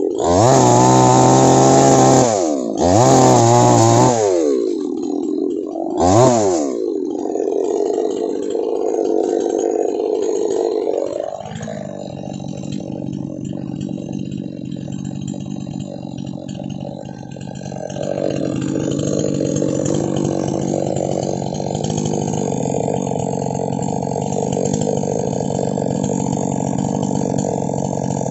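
Two-stroke petrol chainsaw revved hard three times in the first six seconds or so, its pitch climbing and falling each time, then dropping back to a steady idle for the rest.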